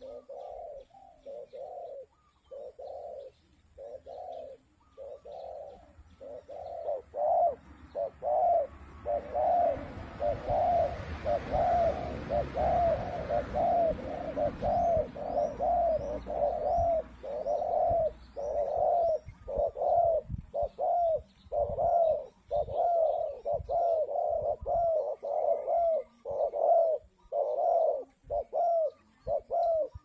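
Spotted dove (tekukur) cooing in a long unbroken series of short coos, about one a second. A low rumble swells and fades in the middle, and a smaller bird chirps faintly there.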